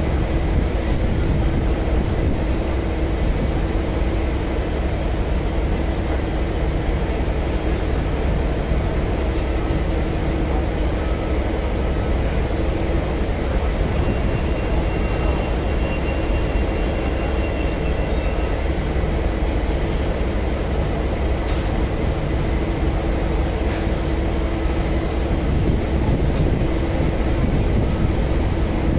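Diesel locomotive idling: a steady low engine rumble with a constant hum, with two short clicks about three quarters of the way through.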